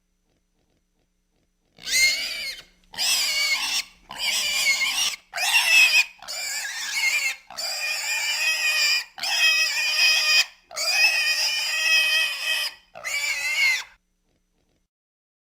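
A pig screaming: a run of about nine high-pitched screams, each from half a second to nearly two seconds long, with short gaps between them. They begin about two seconds in and stop shortly before the end.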